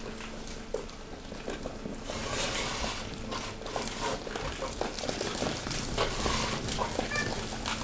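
Hydraulic waste compactor at work: a steady hum from its hydraulic pump, with waste cracking, crunching and clattering as it is pressed. The crushing sounds grow busier about two seconds in.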